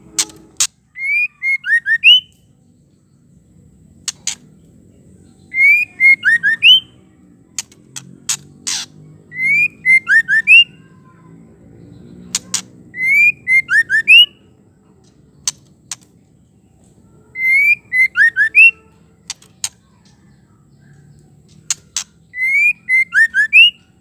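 Female white-rumped shama calling: a few sharp clicks followed by a quick run of whistled notes sweeping up and down, the same short phrase repeated about every four seconds.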